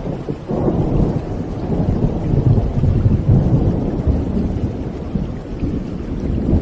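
Thunder rolling over steady rain: a long, deep rumble that swells about half a second in, is loudest in the middle and eases off near the end, with the hiss of rain underneath throughout.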